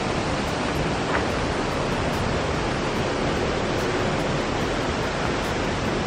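Waterfall rushing, a steady even sound of falling water with no breaks.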